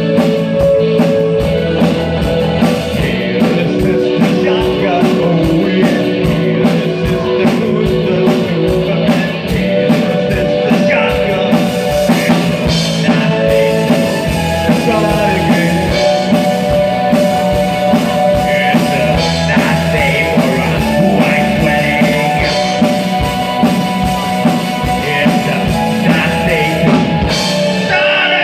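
Live new wave rock band playing: drum kit, electric guitar, electric bass and synth keyboard, with a male lead singer. A steady, fast hi-hat beat runs through the first half before the drum pattern changes.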